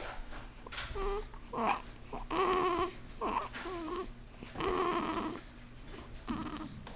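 A string of short, pitched whimpering cries from a sleeper, about seven of them with gaps between, typical of a bad dream.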